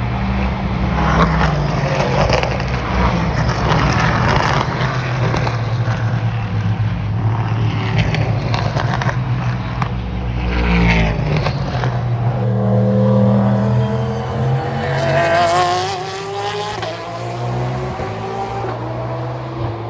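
Race cars passing at speed on a circuit: the engine notes climb as the cars approach and drop as they go by, once about ten seconds in and again toward the end, over a steady low engine drone.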